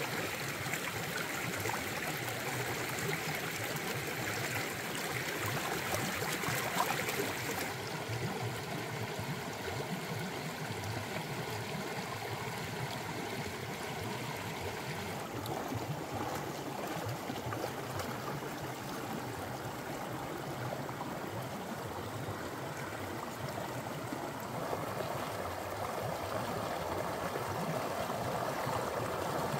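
Shallow rocky stream running and splashing over stones, a steady rush of water whose tone shifts about eight seconds in and again about fifteen seconds in.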